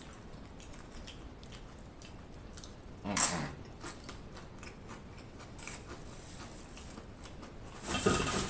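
Biting and chewing loaded nacho tortilla chips, with a loud crunch about three seconds in, another near the end, and small faint chewing sounds between.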